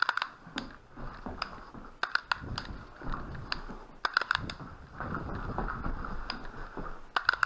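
Irregular sharp clicks and knocks, some in quick clusters of two or three, over low rustling handling noise.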